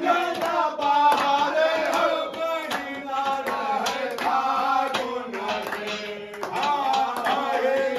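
Group of men singing a Holi folk song together, with hand clapping in time.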